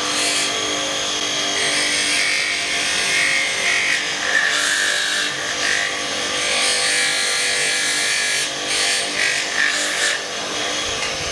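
Electric grinder running with a steel knife blade held against its grinding disc to sharpen the knife's hooked tip. A steady motor hum sits under a harsh grinding hiss that rises and falls as the blade is worked.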